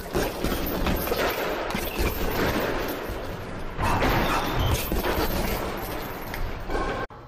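Gloved punches landing on a TKO heavy bag in a rapid, dense string of impacts, cutting off suddenly near the end.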